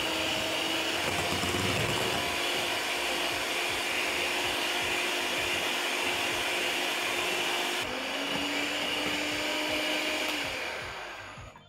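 Electric hand mixer running on high speed, its beaters whipping a batter of margarine, sugar and eggs: a steady motor whine that dies away near the end as the mixer is switched off.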